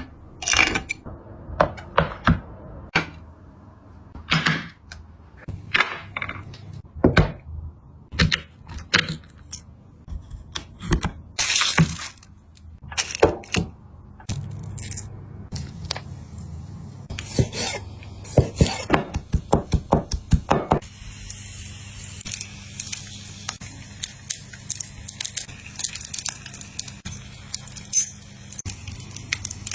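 Food being cracked, broken apart and crunched: irregular sharp cracks and snaps, some single and some in quick runs, growing denser over a low steady hum in the last third.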